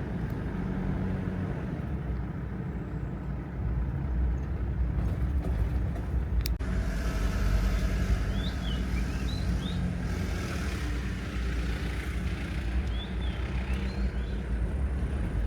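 Diesel engine of a 1993 Mitsubishi Pajero V46 running steadily as the vehicle is driven slowly, with a deep steady rumble and road noise.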